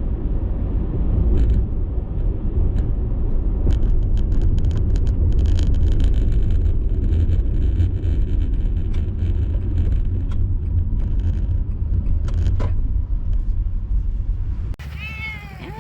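Car on the move: a steady low rumble of engine and road noise, with scattered sharp clicks through the middle. It gives way to a different, quieter sound about a second before the end.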